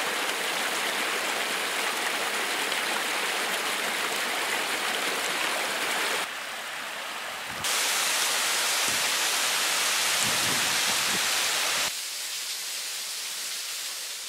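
Rushing water from a rocky cascade and a waterfall: a steady hiss of falling water. Its level drops and rises abruptly about six, eight and twelve seconds in, as the footage cuts between falls.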